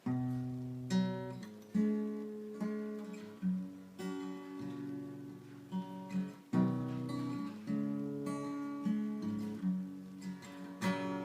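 Acoustic guitar playing a song's intro, chords struck about once a second and left to ring.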